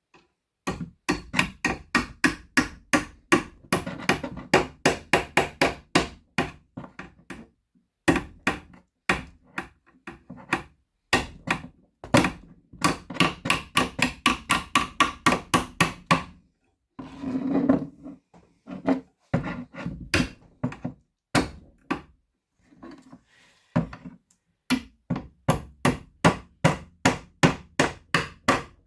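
Repeated hammer blows, about three a second, each with a short ringing tail, in several runs broken by brief pauses.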